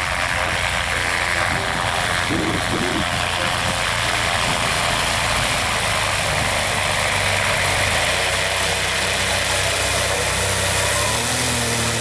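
X-Air ultralight's propeller engine running steadily as the aircraft taxis on grass, coming close and turning past. Near the end the engine note settles into a few clearer steady tones.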